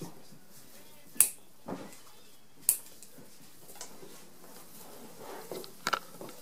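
A few short sharp clicks and soft rustles of hands handling flowers and paper in a cardboard box, the loudest about a second in, another near three seconds and a couple more near the end.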